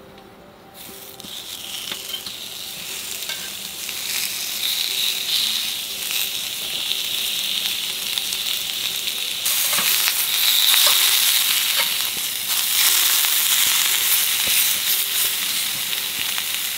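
Hanwoo beef steaks (buchaesal, flat-iron cut) sizzling as they sear on a ridged grill pan over a gas burner. The sizzle starts about a second in as the meat goes on, builds over the next few seconds, and gets louder again about ten seconds in.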